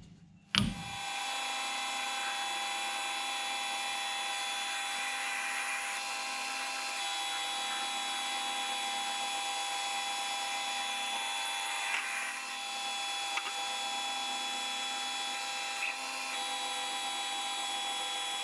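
Metal lathe running and turning a bar of round stock, a steady whine over the noise of the cut. It starts with a click about half a second in, and its tone shifts slightly a few times.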